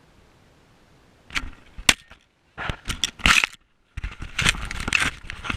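Footsteps crunching through snow, with several sharp cracks. The sound drops out completely for a moment just past halfway.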